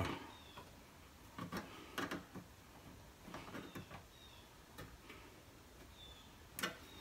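Hand snips cutting short slits into the edge of a steel sheet: a handful of separate sharp snips and clicks, the loudest near the end, with a few faint short squeaks.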